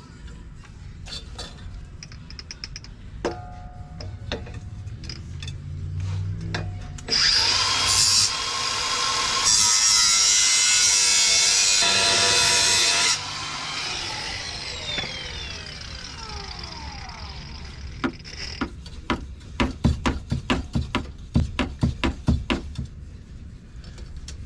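Power tool with an abrasive cut-off disc cutting through steel exhaust pipe for about six seconds, then its disc spinning down with a falling whine. Near the end comes a quick run of sharp metal knocks, about three a second.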